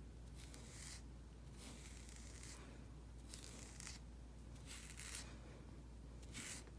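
A Furminator deshedding tool raked through a timberwolf's thick coat in faint brushing strokes, about one a second, pulling out loose shedding undercoat.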